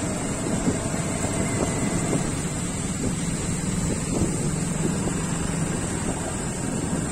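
Motorcycle engine running steadily at low road speed, with wind noise on the microphone.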